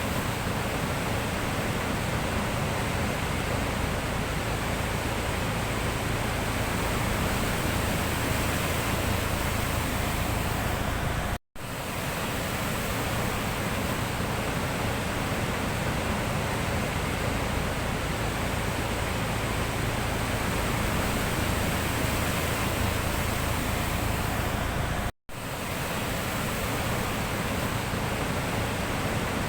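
Sea surf making a steady, even rush with no separate wave breaks standing out. The sound cuts out abruptly for a split second twice.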